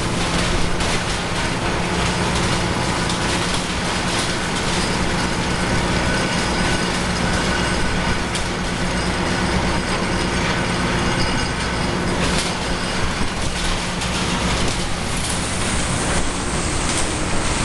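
Komatsu BR200T-1 tracked tub grinder running, its Komatsu SA6D125E2 six-cylinder diesel and grinding mill making a loud, steady mechanical din with a low hum and scattered knocks and clatter.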